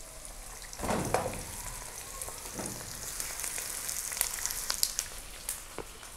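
Hot oil sizzling and crackling in a non-stick wok as pieces of boiled mutton are tipped onto softened onions, landing with a soft thump about a second in, then a smaller one. Sharp oil pops run through the steady sizzle.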